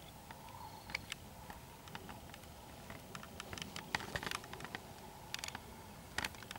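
Scattered light clicks, taps and rustles, thickest a little past the middle and again near the end: handling noise from a handheld camera moved about close to the ground.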